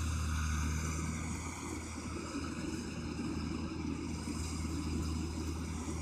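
Rice combine harvester running steadily, its engine a continuous low hum with a slight waver in pitch.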